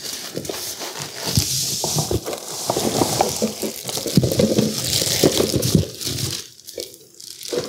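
Packaging rustling and crinkling as an item is unwrapped and handled, with scattered small clicks and knocks.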